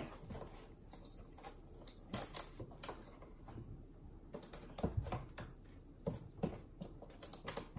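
Irregular taps and knocks of a baby's hands patting and grabbing at a corrugated cardboard cat scratcher, with sharper knocks about two seconds in and about five seconds in.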